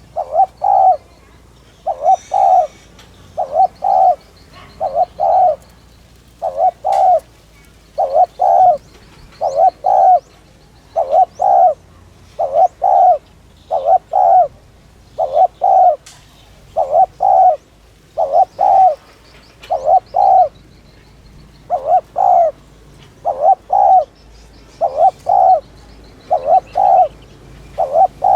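Spotted dove cooing its fast 'thúc' call: short two-note coos repeated about once a second, over and over. Faint small-bird chirps sit behind it.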